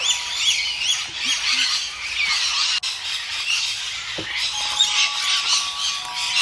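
Many birds calling at once in the trees, a dense, unbroken chatter of short, high, overlapping calls.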